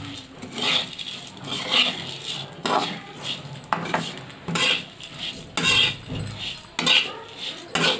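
Flat spatula scraping and tossing dry flattened rice (poha) around a kadhai, in a run of repeated strokes about one to two a second. The poha is being dry-roasted without oil.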